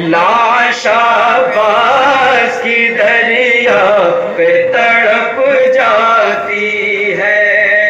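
Men's voices chanting a noha, a Shia mourning lament, as a continuous sung melody.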